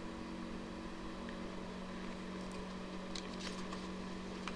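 Steady low electrical hum of the room, with a few faint papery rustles and a small click in the second half from a picture book being handled.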